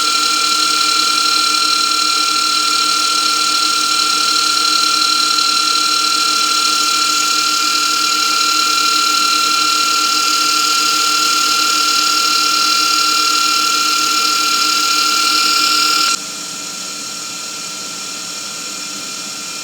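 Electric power tool running steadily with a constant high-pitched whine over a hiss. About 16 seconds in the sound drops abruptly to a much quieter steady level.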